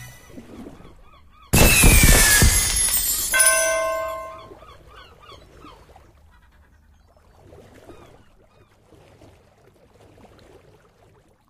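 Big Bass Christmas Bash slot game sound effects for the free-spins award: a sudden loud burst with a falling whistle about a second and a half in, then a short held chord, fading to a faint game background.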